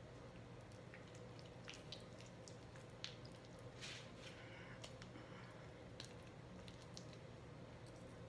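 Faint wet squishing and a few soft clicks as raw chicken pieces are pushed onto skewers by hand, over a low steady room hum.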